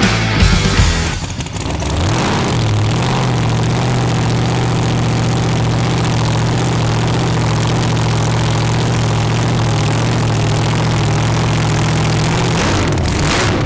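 Supercharged drag-car engine in a blown EH Holden ute starting up: uneven firing and a quick rev in the first couple of seconds, then a steady idle, which shifts briefly near the end.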